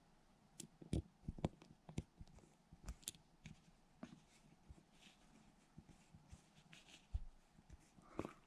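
Faint small clicks and taps of a small screwdriver and screws working on a Daiwa Tatula CT baitcasting reel's frame as the screws are started, most of them in the first three seconds.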